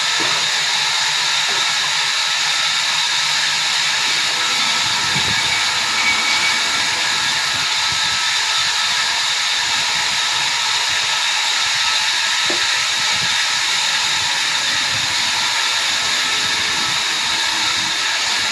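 Sawmill machinery running with a steady, even hiss that holds without pause or change.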